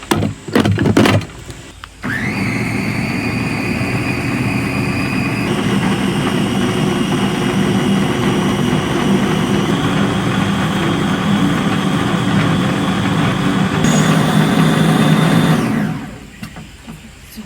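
A few knocks, then a small motor starts with a rising whine, runs steadily for about fourteen seconds and cuts off.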